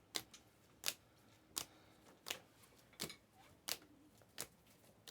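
Trading cards flipped one at a time through a pack: a short, sharp card snap about every 0.7 seconds, seven in all, at an even pace.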